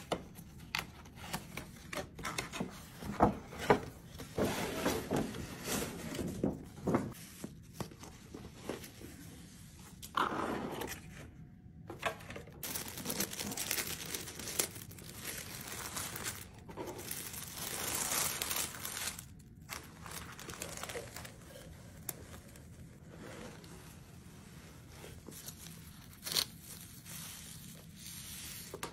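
Luxury-goods packaging being unwrapped by hand: tissue and wrapping paper crinkling and tearing, with sharp clicks and taps of boxes and bags being handled.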